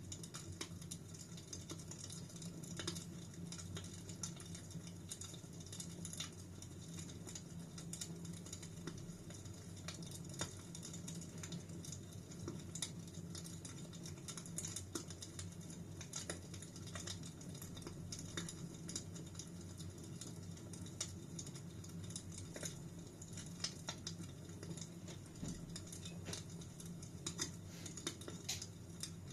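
Fire in a fireplace crackling: frequent small, irregular pops and snaps over a steady low rumble.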